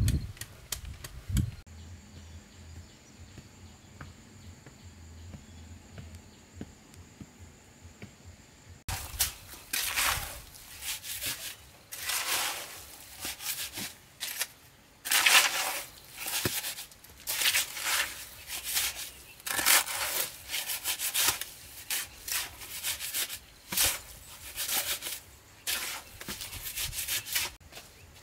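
A metal hoe and trowel scraping through wet cement mortar on the ground in repeated strokes, roughly one a second, starting about nine seconds in after a quiet stretch.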